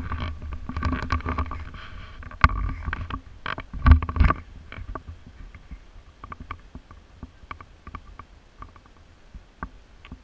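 Handling noise on a body-worn GoPro as it is lowered toward the ground: a low rumble of rubbing with sharp knocks, the loudest about two and a half and four seconds in, settling after about four and a half seconds into scattered light clicks.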